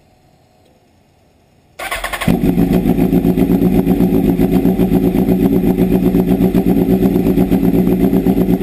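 A Honda CBR929RR's inline-four engine is started after an oil change: the starter cranks briefly, the engine catches about two seconds in and settles into a steady idle. It is run for a few seconds to circulate the fresh oil and fill the new filter.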